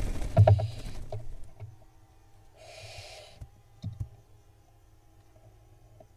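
Loud scuffling and knocking in a barn owl nest box, heaviest in the first second and a half, with a deep thump about half a second in. About three seconds in, a barn owl nestling gives a short, noisy hissing begging call, followed by a couple of single knocks.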